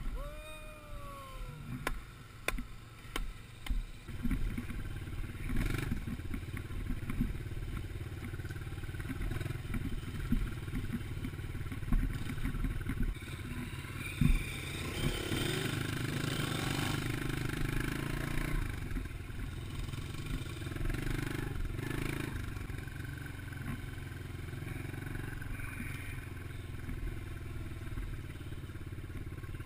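Dirt bike engine running steadily while riding a rough forest trail, with a run of sharp knocks from the jolting ride in the first few seconds and a rush of wind noise on the microphone about halfway through.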